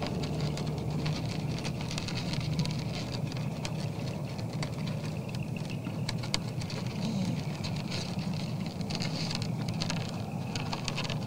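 Whitetail buck eating from a feeder pan close to the microphone: irregular crunching and clicking of its muzzle working through the feed, over a steady low hum.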